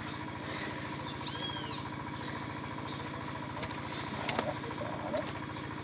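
Steady hum of a running motor, with a bird giving one arched chirp about a second and a half in.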